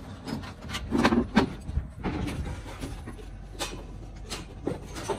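Irregular knocks and clunks of a timber plank being handled on steel scaffold frames, with a couple of sharper knocks about a second in.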